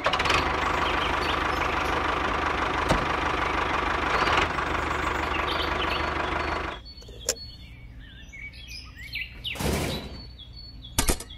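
Toy tractor's motor running steadily for several seconds, then cutting out. After it stops, birds chirp faintly, with a click and a short rustle about ten seconds in.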